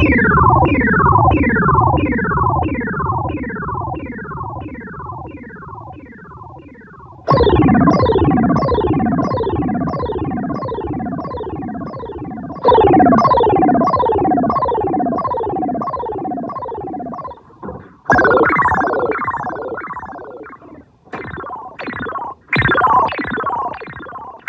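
Boss SY-200 synthesizer pedal making spacey, UFO-like sounds: each note sets off a rapid train of falling pitch sweeps, about three a second, that slowly fades away. New notes come in about seven seconds in, near the middle, and several times in the last few seconds.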